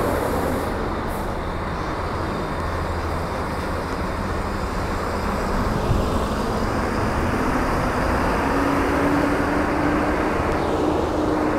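Intercity coach pulling away at low speed, its engine running steadily over the general rumble of bus-station traffic. A faint steady hum comes in over the last few seconds.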